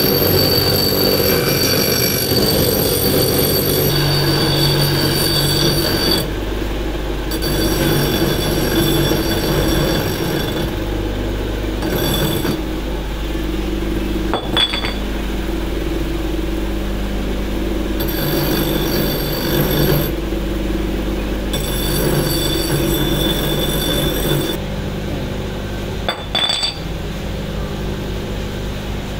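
Bench grinder running with a metal hydraulic-pump end plate pressed against its wheel: a steady motor hum under a high, squealing grind that changes abruptly every few seconds, with a couple of short knocks.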